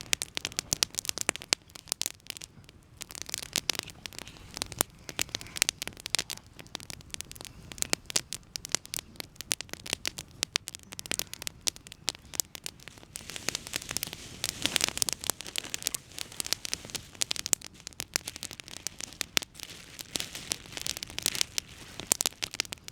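Wood campfire crackling and popping, with many sharp snaps over a shifting hiss.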